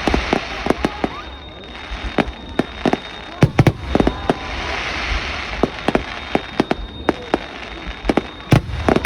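Fireworks display: aerial shells bursting in sharp, irregular bangs, sometimes several a second, over a steady crackling hiss, with the loudest bang near the end.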